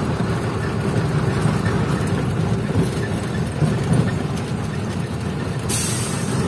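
Truck engine running steadily, heard from inside the cab as the truck rolls slowly along the road, with a short hiss near the end.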